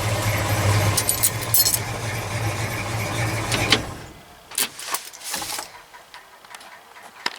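1963 Chevy C30's 327 V8 with dual Flowmaster exhaust running steadily, then shut off about four seconds in. A few light clicks and rattles follow.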